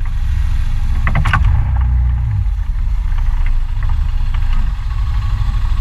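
Scooter's single-cylinder engine running with a loud, steady low rumble while riding on a dirt road, with a short clatter about a second in.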